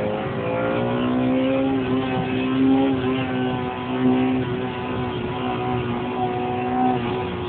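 Honda VTEC four-cylinder engine pulling hard at high revs, heard from inside the car. Its pitch climbs through the first second or so, then holds nearly steady and eases slightly near the end.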